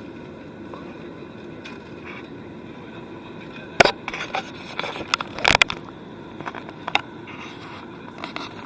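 Steady drone of an airliner cabin in flight, with a few loud scraping knocks and crackles, the loudest about four and five and a half seconds in.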